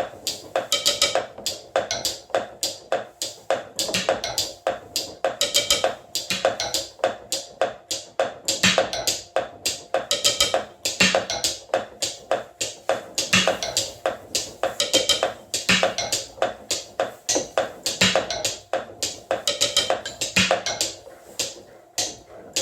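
Mechanical acoustic beat sequencer playing a repeating rhythm of sharp clicks and wooden taps, with a low thump about every two and a half seconds.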